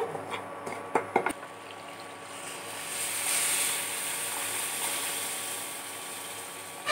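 A few sharp clicks about a second in. Then milk is poured into a hot pan of ghee-roasted broken wheat (dalia) and sizzles with a steady hiss, loudest about three seconds in and slowly easing.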